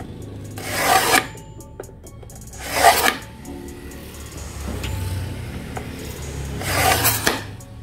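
Hand-held tile scorer dragged across a glazed ceramic tile, three scratchy strokes each lasting under a second: scoring the glaze along the marked line so the tile can be snapped.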